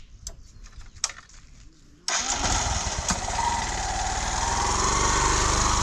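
A few faint clicks, then a motorcycle engine starts about two seconds in and keeps running.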